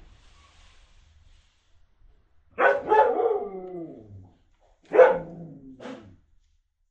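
Dog barking and whining to be let in: two loud barks about two and a half seconds apart, each trailing off into a falling whine, with a short extra yelp just after the second.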